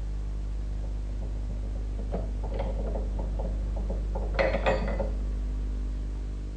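Metal parts of a dismantled Lister-Petter engine being handled: scattered light clinks, then a few louder metallic clanks about four and a half seconds in, over a steady low hum.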